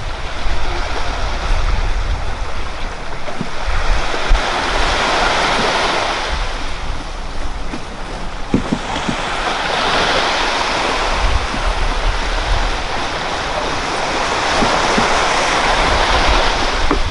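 Small waves breaking and washing up the sand, a steady hiss that swells and fades every few seconds, with wind rumbling on the microphone.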